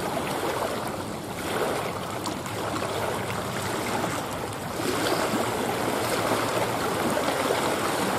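Small wind-driven lake waves lapping and splashing against a rocky shoreline, a steady wash that swells about one and a half seconds in and again about five seconds in.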